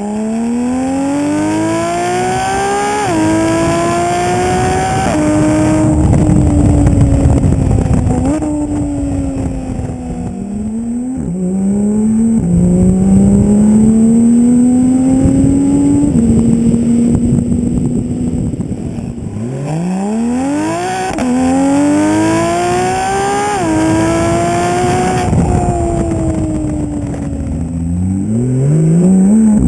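Porsche 991 GT3's flat-six engine through a GMG sport exhaust center section, pulling hard through the gears. The revs climb quickly and drop sharply at each upshift. Between the pulls it eases into steadier cruising, and as it slows the revs jump up suddenly a couple of times.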